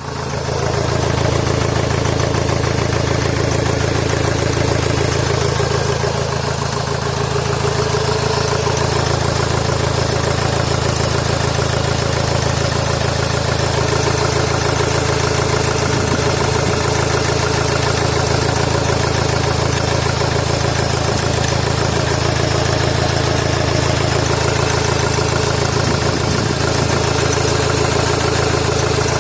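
Honda Accord 2.2 i-CTDi four-cylinder turbodiesel idling steadily, running badly after a turbocharger failure.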